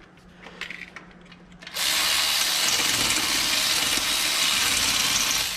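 Cordless electric ratchet, a power tool, starting up about two seconds in and running at a steady speed for nearly four seconds. It is being spun up to break loose a rusted bolt.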